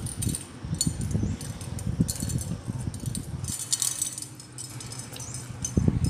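Shell wind chime jingling and clinking irregularly in the breeze, in clusters of light high clicks, over a low rumble of wind.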